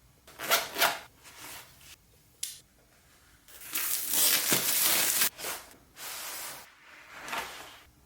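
Packaging being handled while a keyboard is unboxed: several bursts of rustling and crinkling, the longest lasting nearly two seconds in the middle, with a short sharp click a couple of seconds in.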